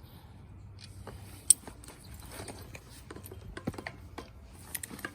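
Irregular clicks and knocks of a wrench working on a bicycle's stuck front axle nuts and the wheel being freed from the fork, with one sharp click about a second and a half in.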